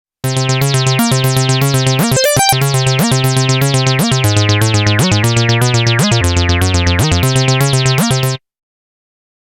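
Arturia AstroLab playing a Jupiter-8 synthesizer preset: a bright, buzzy, rapidly pulsing arpeggio of about eight notes a second over a bass note that changes about once a second. About two seconds in there is a quick upward pitch sweep, and the sound stops abruptly near the end.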